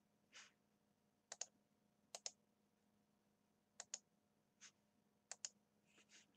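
Faint clicks of a computer mouse button, each a quick press-and-release pair, about four times spread over a few seconds.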